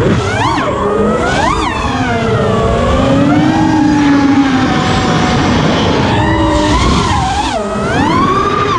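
FPV quadcopter's brushless motors and propellers whining, the pitch jumping up and sliding down again and again as the throttle is punched and eased, over wind rushing across the action camera's microphone.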